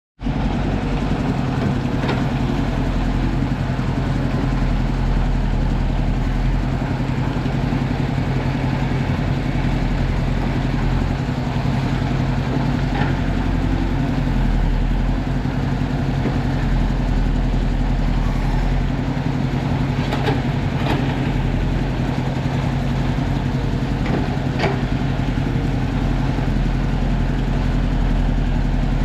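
Diesel engine of a Volvo wheeled excavator running steadily at a constant pitch, with a few sharp knocks scattered through it.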